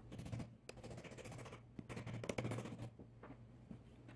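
Thin walnut splines being pushed into the slots at a wooden box's mitred corners: wood scraping against wood in a few short bursts, with small clicks.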